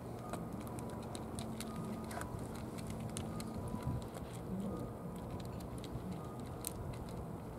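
Cats eating wet cat food from trays: many small scattered clicks of chewing and licking, over a steady low rumble.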